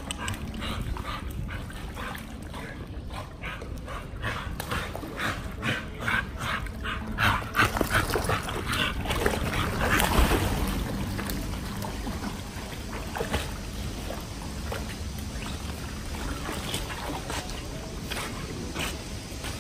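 Pit bulls yipping, whimpering and barking excitedly in play: a quick run of short, sharp yips through the first several seconds, then quieter.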